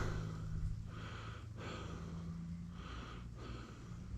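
A man's breathing close to the microphone while he walks: a series of soft breaths with short pauses between them, over a low steady hum.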